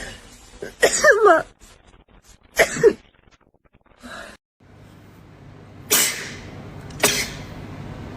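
A young woman sneezing several times in a row, about four sneezes. The last two are sharp and sudden, about a second apart.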